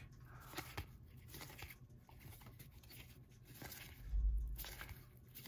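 1991 Upper Deck baseball cards being flipped one by one from one hand's stack to the other: soft slides and flicks of card stock. A dull low bump comes about four seconds in.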